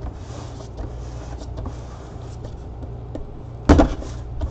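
A cardboard product box being handled by gloved hands: light rustling and small taps, with one sharp knock against the box a little over three and a half seconds in. A steady low electrical hum runs underneath.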